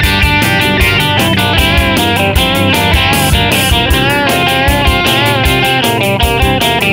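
Background music led by electric guitar, with a steady beat.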